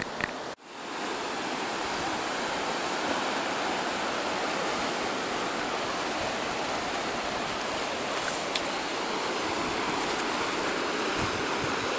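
Steady wash of ocean surf breaking on a rocky shore, heard from above. It cuts out briefly about half a second in, then carries on evenly.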